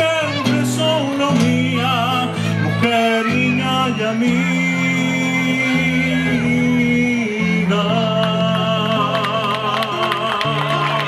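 Tenor singing a zamba with a live folk band, acoustic guitar accompanying over steady bass notes. About eight seconds in he holds a long, wavering high note.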